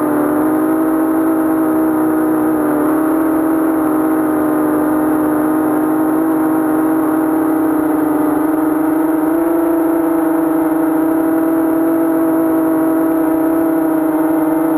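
Quadcopter's four T-Motor 2206 2000 kV brushless motors spinning 5045 propellers on a 3S battery, heard from the onboard camera as a loud, steady buzzing whine. The pitch dips slightly at the start and steps up about nine seconds in as the throttle changes.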